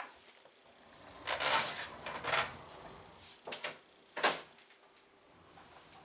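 Objects being handled indoors: a few short rustling, rubbing sounds followed by light knocks, the sharpest a little past four seconds in. No vacuum motor is running.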